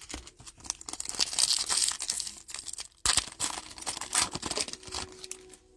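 A 2021 Panini Donruss Elite hobby pack being torn open, its wrapper crinkling and ripping in irregular bursts for about four seconds.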